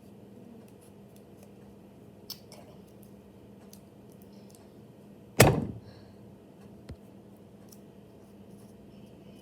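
Faint handling sounds with a few small clicks, and one sharp loud knock about five seconds in, followed by a smaller click a moment later.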